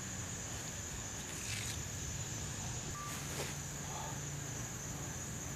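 Insects chirring steadily in a high, even drone, with a faint low hum beneath and a couple of faint clicks.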